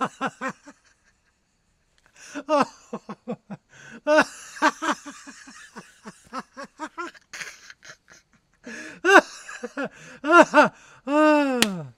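A man laughing heartily in rapid ha-ha bursts. He stops for about a second near the start, then resumes, and ends on one long drawn-out note that falls in pitch.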